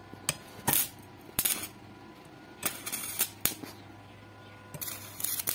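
Metal clinking: about a dozen short, sharp clinks and taps at irregular intervals, with a quick cluster near the end.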